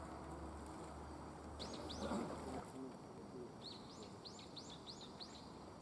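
A small bird chirping: two quick high chirps, then a run of about five more in the second half. A brief muffled scuff, the loudest sound, comes about two seconds in, and a low hum underneath stops shortly after.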